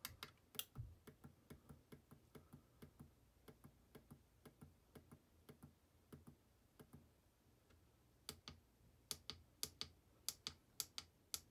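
Faint clicking of an Auber SYL-2352P PID controller's keypad buttons pressed repeatedly, about three presses a second, stepping through the parameter settings. The presses pause about seven seconds in, then resume louder.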